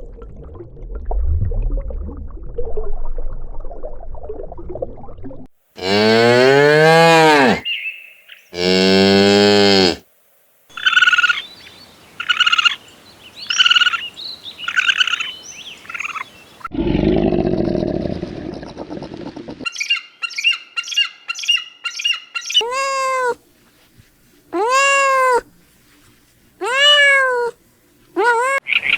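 A string of different animal calls. Two long rising-and-falling cow moos come about six seconds in, then a run of six short repeated calls and some rapid chirping. Near the end come four arching cat meows.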